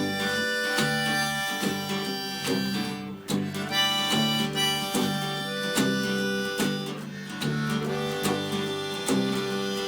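Instrumental break in a folk-blues song: a harmonica plays a melody in long held notes over a strummed and picked acoustic guitar.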